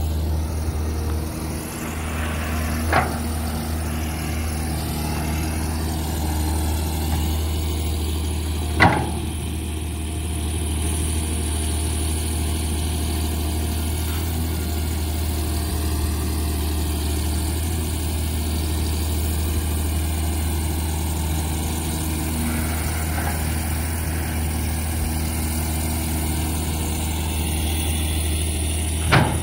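A Caterpillar excavator's diesel engine running steadily, with three short sharp knocks: one a few seconds in, one about nine seconds in, and one at the very end.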